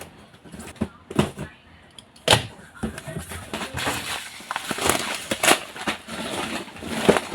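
Grocery packaging being handled and unpacked: irregular rustling and crinkling with sharp clicks and knocks.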